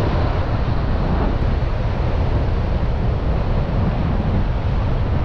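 Sea wind buffeting the microphone with a steady low rumble, with ocean surf washing behind it.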